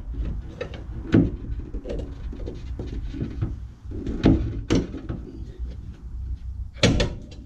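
Clunks and clicks of car parts being handled and fitted by hand at the front bumper mounting, over a low rumble. Sharp knocks come about a second in, twice more between four and five seconds, and again near the end.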